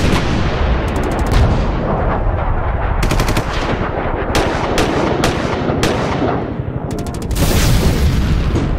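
Bursts of rapid machine-gun fire, several strings of quick shots over a steady low rumble, as a sound effect.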